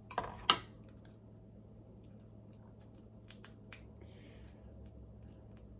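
King crab leg shells cracking and clicking as they are broken apart by hand: two sharp snaps near the start, then faint scattered clicks.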